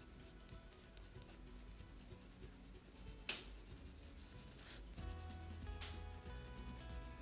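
Colored pencil scratching on paper in short repeated strokes, hatching fine fur, with one sharper tick about three seconds in. Faint background music underneath.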